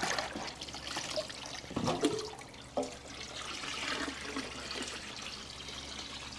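Electrolysis solution (water and washing soda) pouring and splashing out of a motorcycle gas tank as it is dumped.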